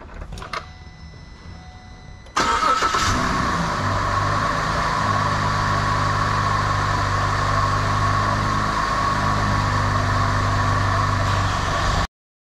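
Holden Commodore engine started about two seconds in, right after new spark plugs, ignition coil and thermostat were fitted: it catches almost at once and settles into a steady idle, which cuts off abruptly near the end.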